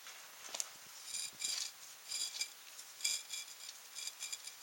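Light metallic clinks and scrapes, a handful in a row about a second apart, from the wire barbecue grill net being shifted on the fire pit's blocks and iron plate.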